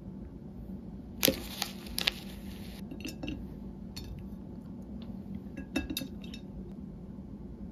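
Porcelain plates clinking and tapping as decorated cookies are handled and moved on them: a few sharp light clinks, the loudest about a second in, with another small cluster near the end.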